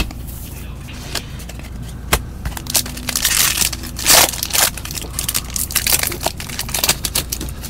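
Trading card pack being torn open and handled: the wrapper crinkling and tearing, with the cards clicking against each other. It is loudest from about three to four and a half seconds in.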